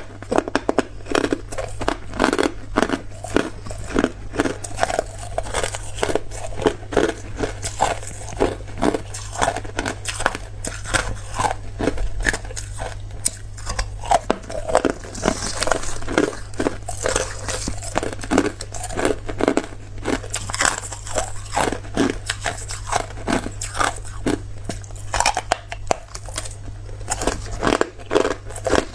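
A person biting and chewing hard clear ice, with rapid, irregular crunches.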